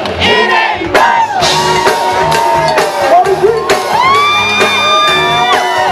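Live funk band playing, with a woman's voice singing long held notes that slide up and down over drums and bass, and shouts from the crowd.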